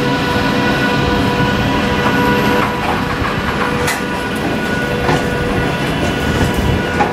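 Two VR Sr2 electric locomotives rolling slowly past at the head of a heavy iron ore freight train: a steady rumble with wheels clicking over the rails now and then, and a steady electric whine that fades about five seconds in.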